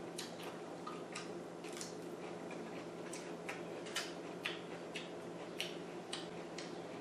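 Close-miked chewing and wet mouth sounds of a person eating salad: irregular smacks and clicks, two or three a second, over a steady low hum.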